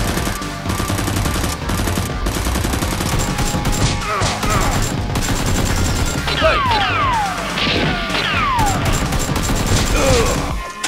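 Rapid, dense gunfire sound effects, a continuous fusillade of shots, laid over background music. In the second half several falling whistles sweep down in pitch.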